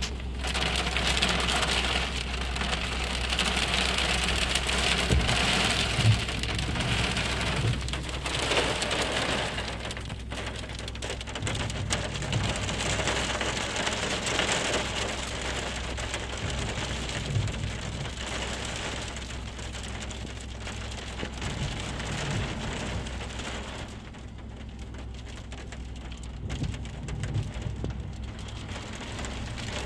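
Hail pelting a car's roof and windscreen, heard from inside the car as a dense, steady patter. It is heaviest for the first ten seconds or so, then eases off.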